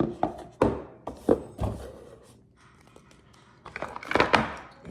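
Parts and packaging handled by hand: a few sharp taps and knocks in the first two seconds, then a brief rustle about four seconds in.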